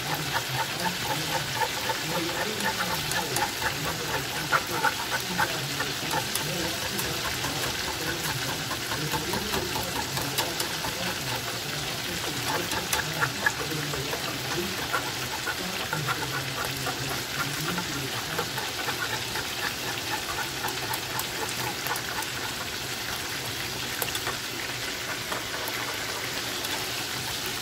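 Steady hiss and bubbling of cooking on a hob: chicken deep-frying in oil and potatoes boiling in a steamer pan, with a wire whisk stirring cheese sauce in a saucepan.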